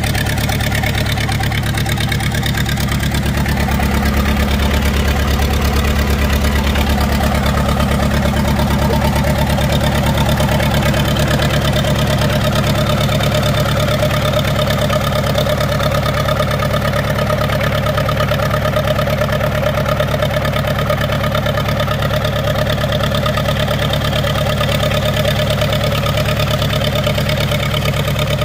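1960 International B275 tractor's four-cylinder diesel engine idling steadily as it warms up after a cold start, a little louder from a few seconds in.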